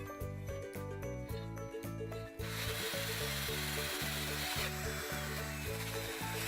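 Steel wire brush spun by an electric drill scrubbing rust off a cast iron skillet. The scratchy grinding starts about two and a half seconds in, over background music.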